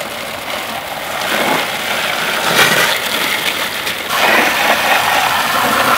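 Garden hose spray nozzle jetting water onto an egg incubator's base to rinse it, a steady hiss of spray that builds over the first second and keeps going.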